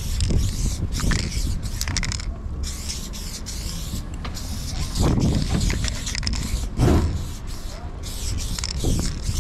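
Aerosol spray paint can hissing as black paint is sprayed onto a train car's metal side, in long bursts with a short break about two seconds in. A steady low rumble lies underneath, and two louder thumps come at about five and seven seconds in.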